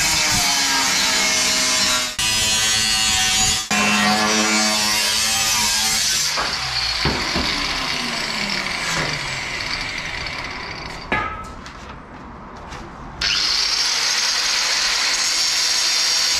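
Angle grinder with a cutting disc cutting steel square tube: a loud, steady, high grinding noise with two brief dips in the first few seconds. About six seconds in the grinder is taken off the cut and winds down, falling in pitch. A sharp knock comes about eleven seconds in, and about thirteen seconds in the grinder starts cutting again, suddenly loud.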